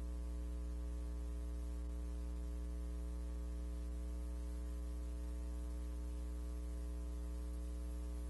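Steady electrical hum with a stack of even overtones under a constant hiss, unchanging throughout.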